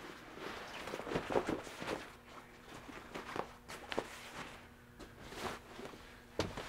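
Fabric rustling and soft clicks as a kayak spray skirt is pulled on over the body and its straps are adjusted, with a few footsteps on carpet.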